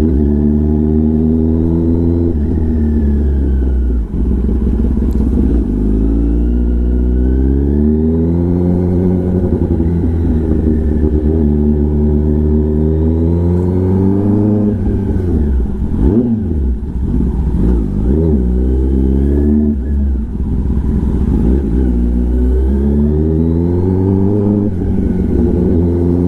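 Kawasaki Ninja ZX-10R's inline-four through an SC-Project aftermarket exhaust, accelerating hard through the gears. The revs climb and drop again at each upshift, several times over, with a choppier spell of quick rev changes in the middle.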